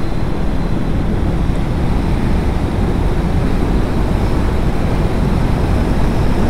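Steady, loud wind rush on the microphone of a Bajaj Dominar 400 riding at road speed, heaviest in the low end. The bike's single-cylinder engine runs underneath.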